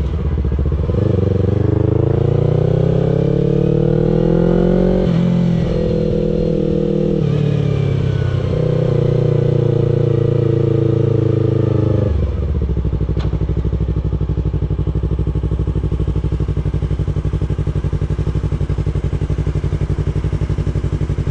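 2016 Yamaha R3's parallel-twin engine pulling up through the gears: the pitch rises in two pulls, dropping back at each shift, then holds steady. About twelve seconds in the revs fall away and the engine settles to a steady, low idle.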